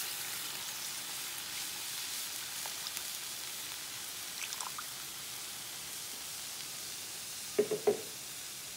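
Water pouring in a steady stream into a pot of seasoned chicken gizzards, splashing into the liquid. A few short knocks come near the end.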